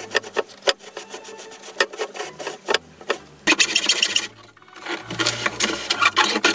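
Hacksaw working on a PVC pipe: quick rasping strokes, with a brief stop a little past four seconds.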